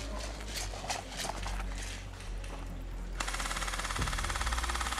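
Airsoft gun firing on full auto: a long rapid burst begins about three seconds in, after a few scattered sharp clicks.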